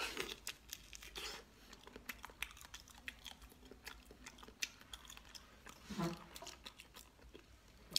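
A person chewing and biting a piece of raw fish with the skin on, close to the microphone: a string of short, wet mouth clicks and smacks, with a brief hum from the eater about six seconds in.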